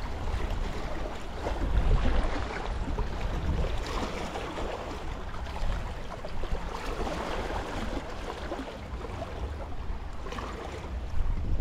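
Small waves lapping and splashing among shoreline rocks, with wind buffeting the microphone in a low, uneven rumble.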